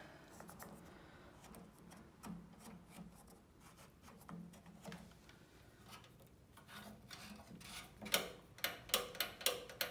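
Hands rubbing and handling the plastic cabinet and knobs of a vintage tube television. Near the end comes a quick run of about eight sharp clicks and knocks in two seconds.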